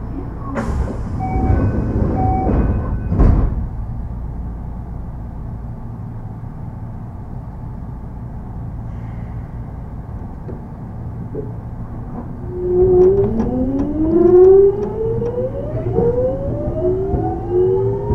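Kintetsu 3200 series electric train pulling away from a stop: its early Mitsubishi GTO-VVVF inverter whines in several tones that climb in pitch as the motors accelerate, starting a few seconds before the end. Before that the car hums low and steady, and in the first few seconds there are two knocks with short beeps between them.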